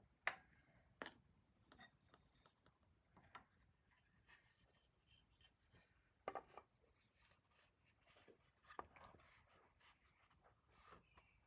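Faint hand work on wooden chair parts being fitted: a few light knocks and clicks, the sharpest near the start, among soft scratching and handling sounds.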